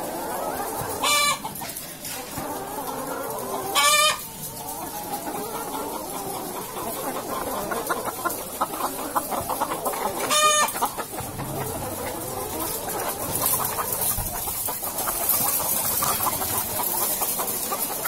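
A flock of brown laying hens in battery cages clucking continuously. Three loud, short calls stand out: about a second in, about four seconds in and about ten seconds in.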